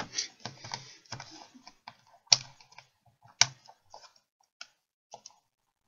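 Plastic clicking and scraping as a small tool is worked around the plastic rim of a Samsung Galaxy Tab 3 8.0 tablet to pry it away from the glass, with two louder sharp snaps a little over two seconds in and about a second later; the clicks thin out to a few single ticks near the end.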